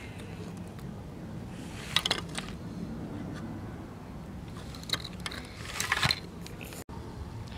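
A few light clicks and scrapes of a disassembled compact fluorescent lamp and its circuit board being handled on a table, about 2, 5 and 6 seconds in, over a low steady hum.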